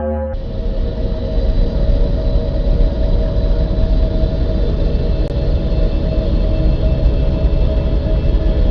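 A space-themed sound effect of a planet: a dense, steady low rumble with a few faint steady hum tones above it.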